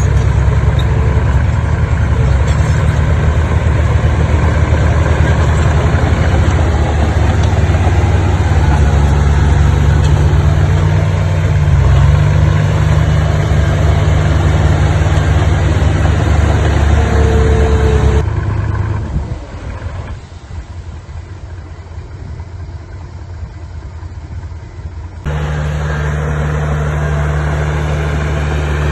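Bulldozer's diesel engine running steadily at work. About two-thirds of the way through it drops sharply to a much quieter level for several seconds, then comes back abruptly.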